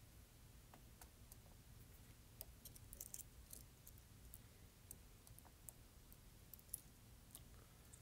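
Faint, irregular clicks of a thinned Peterson hook pick probing the levers of a MIWA U9 lever lock under light tension, with the levers not binding.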